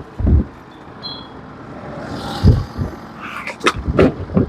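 A few short dull thumps and, near the end, two sharp knocks over a faint steady background, typical of handling gear or wood at a working sawmill.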